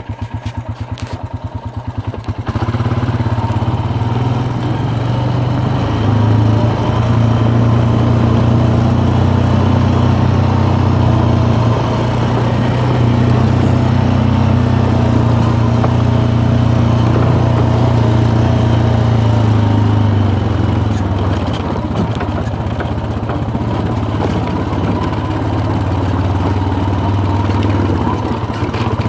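ATV engine ticking over with an even putter, then pulling away about two and a half seconds in and running steadily under load as the quad rides along a gravel track.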